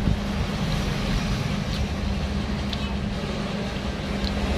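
Steady low rumble with a held hum, with a few faint clicks over it.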